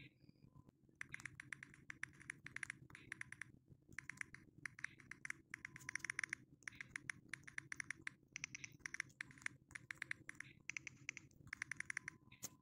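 Keyboard typing: quick bursts of key clicks with short pauses between them, starting about a second in, over a faint low hum.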